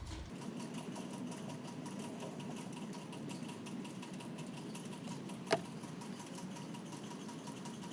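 Engine oil pouring from a can through a funnel into the engine: a faint, steady, rapidly pattering trickle. A single sharp click comes about five and a half seconds in.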